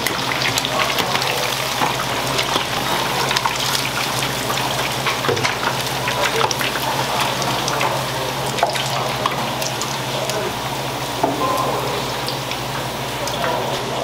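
Hot oil in a deep fryer bubbling and crackling steadily around whole shrimp and battered pieces, a dense run of small pops throughout, over a steady low hum.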